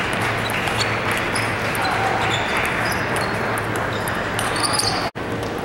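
Table tennis rally: the ping-pong ball clicking off paddles and the table again and again, over the steady din of a large, echoing hall with other matches in play. The sound cuts out for an instant near the end.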